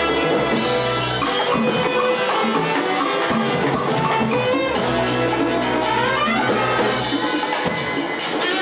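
Salsa orchestra playing live: a horn section over timbales and congas keeping a steady dance rhythm.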